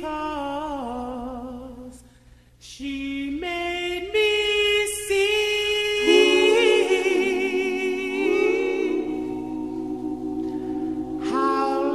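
Background music of voices singing in harmony, largely unaccompanied, with long held notes and vibrato. There is a short break between phrases about two seconds in.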